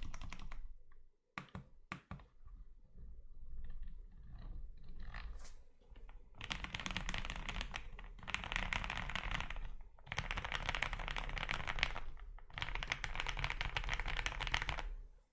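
Typing on a Zoom65 mechanical keyboard with lubed and filmed SP-Star Meteor White switches. The typing stops about a second in, leaving a few single keystrokes, then from about six seconds in come three long runs of fast, dense typing.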